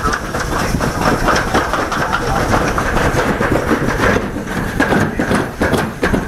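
A summer toboggan sled running fast down a steel slide trough, with a continuous rumbling rattle and clatter from the sled in the track.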